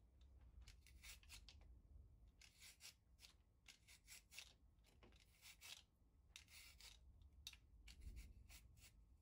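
A dozen or so short scratchy, rustling strokes from raw shredded carrot being handled over a plastic mixing bowl, with a few small clicks among them.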